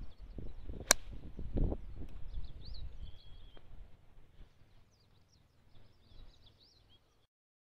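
A golf iron striking the ball off a driving-range mat: one sharp click about a second in, over a low gusting rumble of wind on the microphone. Birds chirp throughout, and the sound cuts off shortly before the end.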